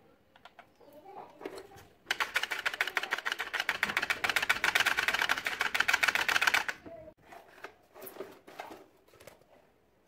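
A rapid rattle of clicks, fast and even like a ratchet or typewriter, starting about two seconds in and stopping suddenly after about four and a half seconds, with a few lighter knocks before and after.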